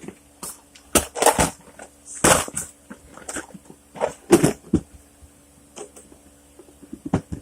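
Tackle box and its contents being handled: a series of irregular clicks and knocks, loudest in the first half.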